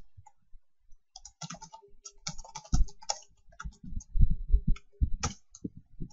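Computer keyboard being typed on: a quick, irregular run of keystrokes starting about a second in, some landing as heavier thuds.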